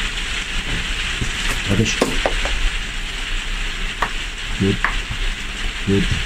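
Steady hiss of rain, with a few light clicks and rattles of crocodile-clip test leads being handled on a desk and a few short low sounds.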